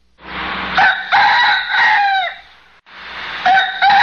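A bird crowing twice: two long calls of about two and a half seconds each, the second starting about three seconds in, each held and then falling in pitch at the end.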